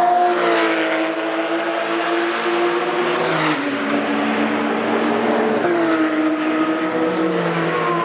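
Several Porsche racing cars at full throttle up the circuit's straight, their engines loud and overlapping. The engine pitch drops sharply several times, about three and a half and six seconds in among others, as the cars shift up and pass.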